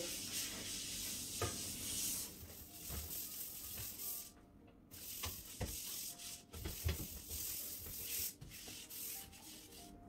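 Green scouring sponge scrubbing and rubbing around the inside of a stainless-steel dishwasher tub, spreading a baking soda, vinegar and dish-liquid cleaning solution, with a few light knocks against the tub.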